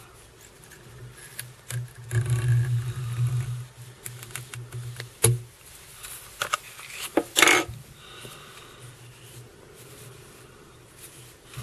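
Fly-tying handling sounds at the vise: scattered clicks and rustles of fingers on thread, feathers and tools, with a low rumble of handling about two to three and a half seconds in and a short sharp rasp about seven and a half seconds in.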